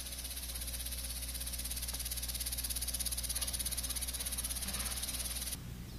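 Insects trilling outdoors: a high, rapidly pulsing buzz that holds steady over a faint low rumble and stops abruptly near the end.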